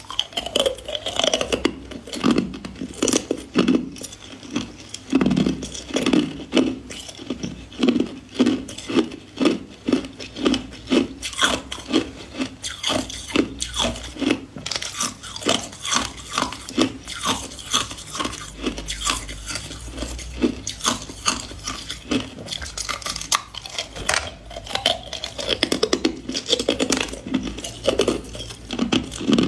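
A person chewing hard ice cubes close to the microphone: a long, steady run of loud, sharp crunches, about two a second, with grinding between them.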